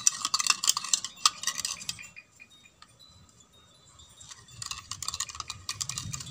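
Metal spoon stirring a milky mixture in a clear measuring cup, clinking quickly against its sides; the stirring stops for about two seconds midway, then starts again.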